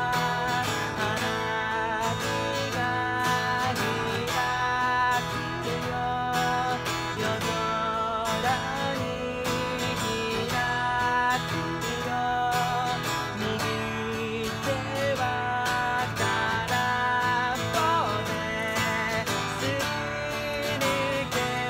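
Acoustic guitar strummed in a steady rhythm under a man's singing voice, with sustained, wavering sung notes.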